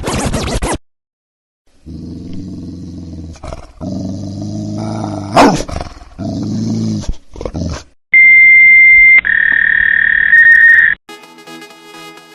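A short scratchy burst, then a dog growling for about six seconds, then a dial-up modem connecting: a steady high beep followed by hissing, warbling handshake noise that cuts off after about three seconds. Music starts just before the end.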